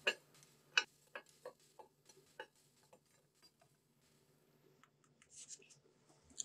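Baked thumbprint cookies set down one after another on a ceramic plate: a quick series of light clicks and taps in the first two and a half seconds, then a brief soft rustle and one more tap near the end.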